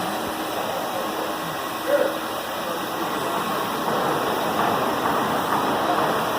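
Ruwac 211H HEPA vacuum running steadily, drawing dust from two drywall sanders working at once, with a short bump about two seconds in.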